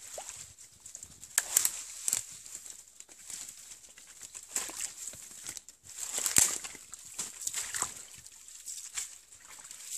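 Footsteps crunching through dry leaf litter and brushing past undergrowth: irregular crackles and rustles, a few of them louder, over a steady high-pitched whine.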